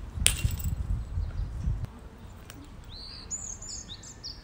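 Low rumbling noise with a sharp click near the start, fading out before the two-second mark. About three seconds in, a small bird starts chirping: short, repeated high notes that drop in pitch, several a second.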